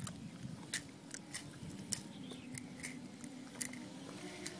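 Faint, slightly wavering hum of a distant FPV drone's motors, rising a little in pitch near the end, with scattered sharp clicks throughout.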